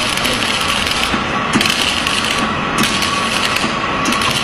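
Steady workshop noise from metalwork on a conveyor pulley, with a faint steady tone and repeated short knocks; a high hiss cuts in and out every second or so.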